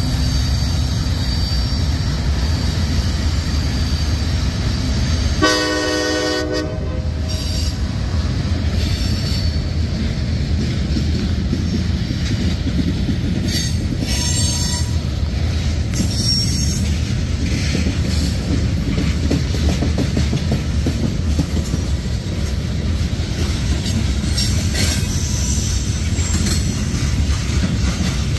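CSX freight train passing close by: the diesel locomotives rumble past, with a short horn blast about six seconds in. After that, loaded hopper cars roll by with steady wheel-on-rail noise, clacking and intermittent high wheel squeal.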